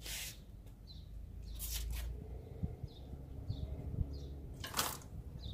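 Quiet outdoor ambience: a small bird chirping faintly and repeatedly, with three short hissing swishes and a couple of faint clicks.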